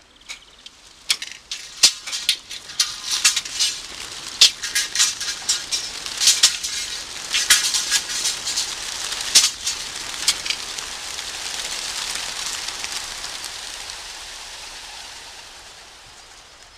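A large flock of pigeons released from a transport truck's crates. Many sharp wing claps and clatters come over about the first ten seconds, then a rushing whir of wings swells and fades away as the flock flies off.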